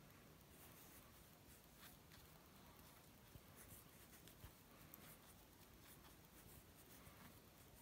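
Near silence, with faint scratchy rustling and small ticks of yarn being worked with a crochet hook.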